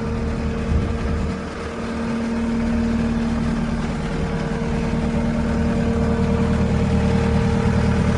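Case SV280B skid steer's diesel engine running, with a steady hum over its low rumble; it grows louder about two seconds in and stays up.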